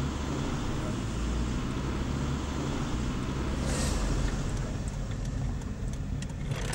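Road and engine noise inside a moving car's cabin. A little before four seconds in there is a brief hiss, after which the noise settles into a lower, steadier hum.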